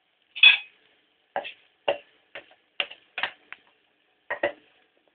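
Wooden spoon knocking and tapping against a frying pan while runny egg mixture is spread over fried potatoes: about ten irregular taps, the first the loudest.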